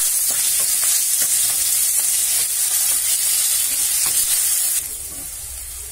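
Diced boiled potatoes and cumin seeds sizzling in hot oil in a steel kadhai, with a wooden spatula scraping and knocking against the pan as they are stirred. A little before the end the sizzle drops suddenly to a quieter level.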